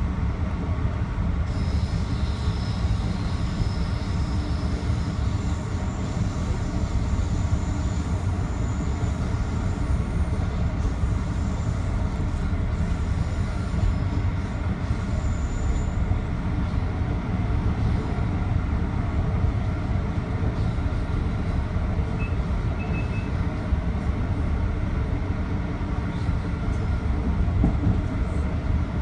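Metro-North commuter train running along the rails, heard from inside the front car: a steady rumble, with thin high-pitched wheel squeal over the first half.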